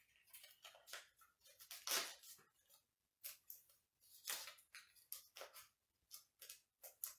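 A small slip of paper being folded over and over into a tiny square, heard as faint, irregular crinkles and rustles.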